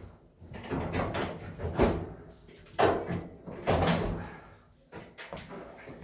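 Knocks and scraping clatter of a dryer's parts and panels being handled and fitted back together, about one a second for the first four seconds, then a few lighter clicks.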